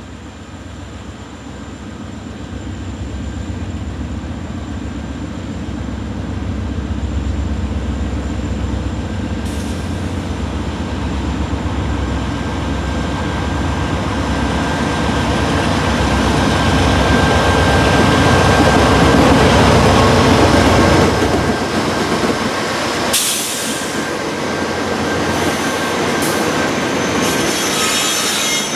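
A CSX freight train's diesel locomotives approach and roll past close by: a GE AC4400CW leads, with an EMD SD70MAC and an SD50 trailing. The engine rumble builds steadily to its loudest about 20 seconds in. The sound changes abruptly a few seconds later as the units go by, leaving rail and wheel noise.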